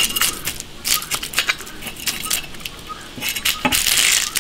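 A kitchen knife scraping the scales off a crucian carp on a wooden chopping block: a quick series of short, scratchy strokes, with a longer, denser scrape about three seconds in.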